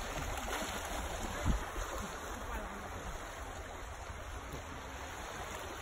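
Small waves washing steadily onto a stony beach, with wind rumbling on the microphone; one short low thump about a second and a half in.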